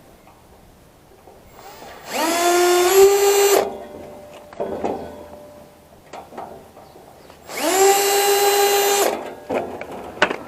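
Power drill running in two short bursts of about a second and a half each, its pitch climbing as it spins up and then holding steady, with small knocks between the bursts.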